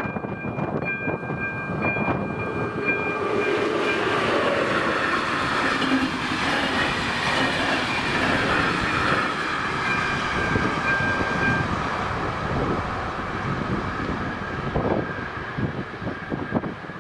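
Passenger train of České dráhy coaches passing over a level crossing: the rumble and clatter of wheels on rail build about three seconds in and fade after about twelve seconds. The crossing's electronic warning bell sounds in short repeated pulses at the start and is heard again through the train noise midway, then stops.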